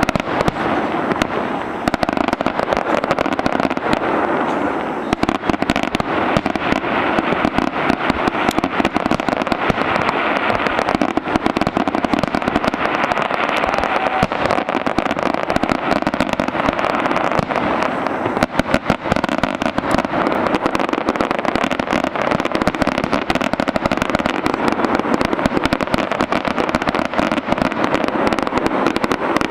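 Aerial fireworks display: many shells bursting in quick succession, a dense, unbroken run of bangs and crackling.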